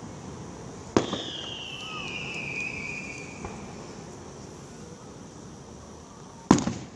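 Fireworks display: an aerial shell bursts with a sharp bang about a second in, with echoing rumble after it. A whistle falls slowly in pitch over the next two seconds, and a second loud burst comes near the end.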